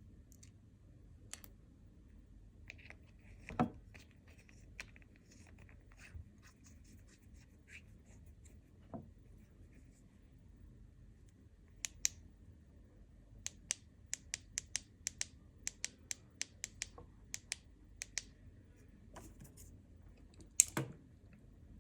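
Small hand-handling sounds: scattered light clicks and taps, then a run of about a dozen quick sharp clicks around the middle, with a louder knock early on and another near the end.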